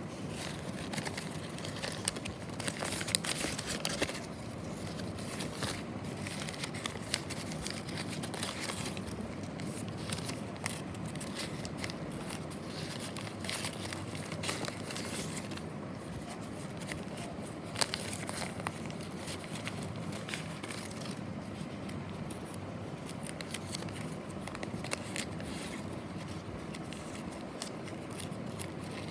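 Packaging being handled and opened: crinkling, tearing and many small clicks and scrapes, busiest in the first few seconds.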